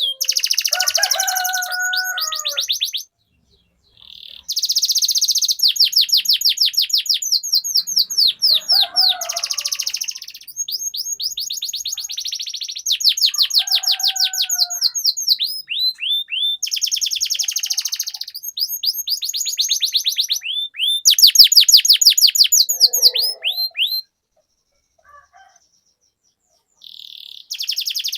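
Domestic canary singing long rolling trills: runs of fast, evenly repeated high notes, one trill after another with short breaks, and two longer silent gaps, one about three seconds in and one near the end.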